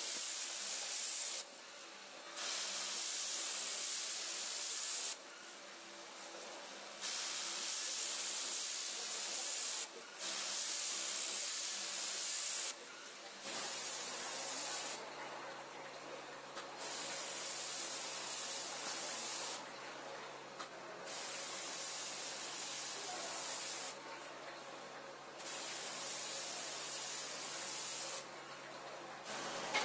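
Automated battery-cell assembly machines hissing with compressed air in repeated bursts of two to three seconds, each followed by a pause of about a second, over a faint steady machine hum. The bursts are a little quieter in the second half.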